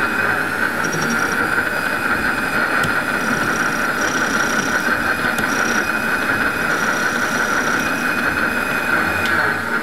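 Bernardo Profi 400 V benchtop metal lathe running, its spindle turning a threaded workpiece while the tool takes a facing cut at the end. There is a steady high whine over a dense machine hum, which winds down as the spindle stops near the end.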